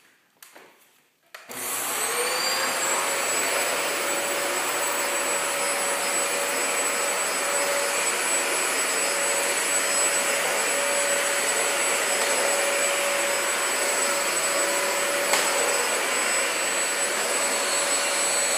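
An electric appliance motor switches on about a second and a half in. Its whine rises briefly as it spins up, then it runs steadily with a loud rushing-air noise.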